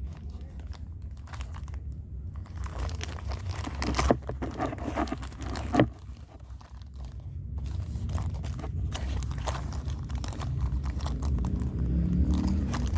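Parcel packaging crinkling and tearing as it is handled and opened, with two sharp snaps in the middle and a steady low rumble from handling.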